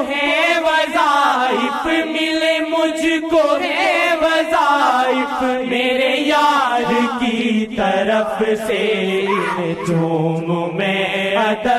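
An Urdu naat, a devotional poem in praise of the Prophet, being chanted: a wavering, ornamented sung melody over a steady low held note.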